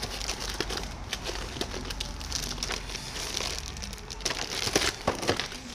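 Hand-fitting and handling noise: crinkling and rustling with many light clicks and knocks as a part is worked into place, a few louder knocks near the end.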